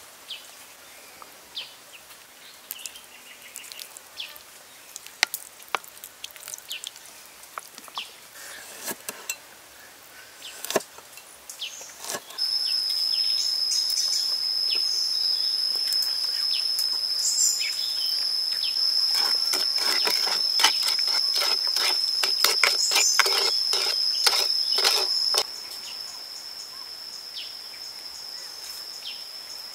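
An insect's steady, high, shrill drone starts suddenly about twelve seconds in and carries on to the end, getting quieter a few seconds before the end. Under it comes a run of light clicks and scrapes from a dressing being stirred in a coconut-shell bowl. Before the drone there are only faint scattered clicks and taps.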